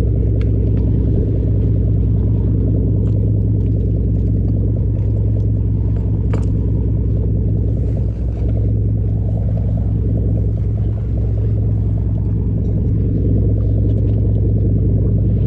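Sportfishing boat's engine running steadily: a low, even drone with no change in speed.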